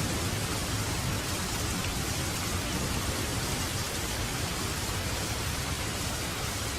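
Steady rain falling, an even hiss with a low rumble underneath and no distinct events.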